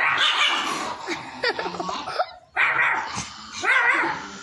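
Small dog barking at a person in a wolf mask, in four loud bursts less than a second apart.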